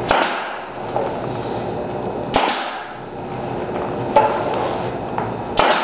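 Four sharp knocks, spaced about a second and a half apart, with a steady rustling between them, as the foil-covered wooden track section is worked on and handled.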